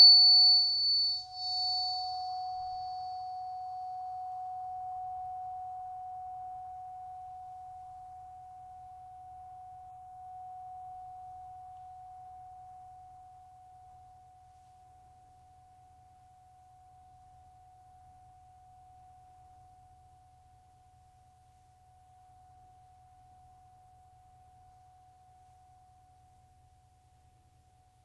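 A Solfeggio-set tuning fork ringing on after its strike, one pure steady tone near 741 Hz that slowly dies away to barely audible by the end. A faint high overtone fades out within the first few seconds.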